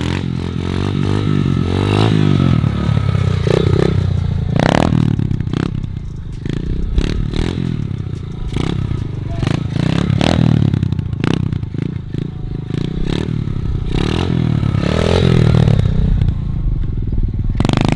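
Small 110 cc pit bike engine revving up and down over and over as the rider throttles it through wheelies, its pitch climbing and falling every few seconds.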